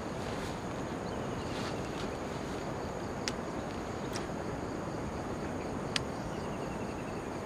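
Steady outdoor background hiss with a few sharp single clicks from a Kastking Royale Legend II baitcasting reel as a lure is cast and the reel is engaged for the retrieve.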